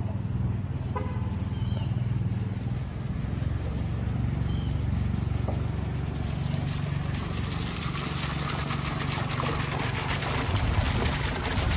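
Hot-spring fountain's water jet splashing into its stone basin, growing louder over the last few seconds, over a steady low rumble of traffic.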